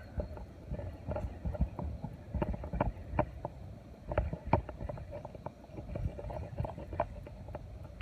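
Small waves lapping and slapping against a rocky riverbank, with many irregular short splashes over a low wind rumble on the microphone.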